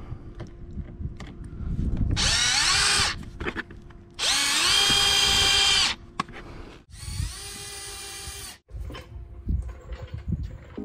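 Cordless drill/driver driving Phillips screws into a plastic bumper spoiler: three runs of motor whine, each rising in pitch as it spins up, the second the longest and the last quieter, with small knocks in between.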